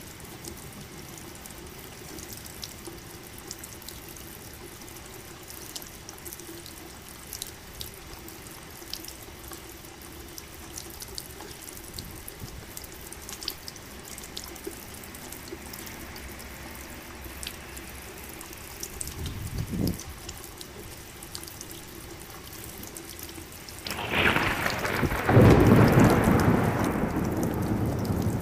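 Steady rain with scattered drips, a short low rumble of thunder about two-thirds of the way in, then a loud thunderclap starting near the end and rolling on.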